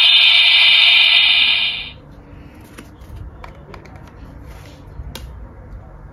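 Electronic sound effect from a homemade card-reading transformation-device replica's speaker: a loud steady tone that stops about two seconds in. A few faint clicks follow as a card is handled at the device.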